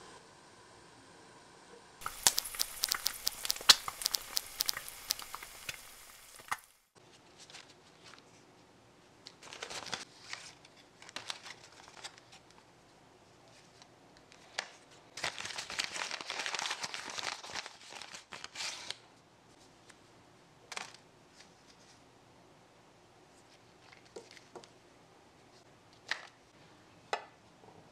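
Crinkling and rustling of packaging: a small brown paper bag being handled, then a small plastic clamshell and packet clicking as they are picked up. The loudest part is a dense run of crackling a few seconds in; after that it comes in shorter bursts of rustling and scattered clicks.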